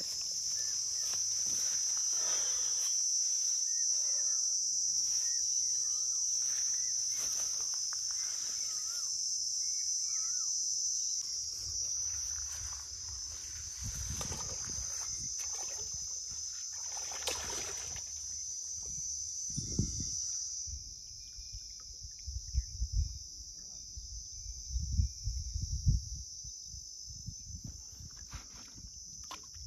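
Insects chirring in a steady high-pitched drone, with rustling and handling noise over the first half. In the last third come a few short, loud low thumps and rumbles.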